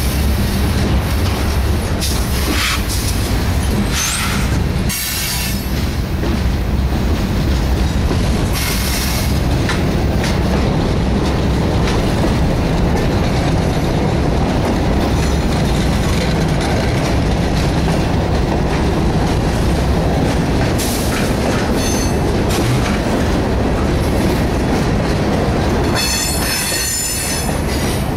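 Freight cars of a CSX train rolling slowly by through a siding turnout: a steady rumble of wheels on rail, broken by brief high-pitched wheel squeals from the flanges working the turnout, the longest squeal near the end.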